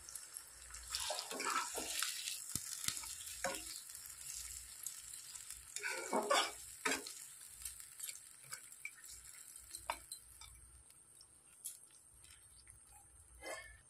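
A spatula stirring chicken curry in a nonstick kadai, with short scrapes and clicks against the pan, loudest about six seconds in, over the faint sizzle of the simmering gravy.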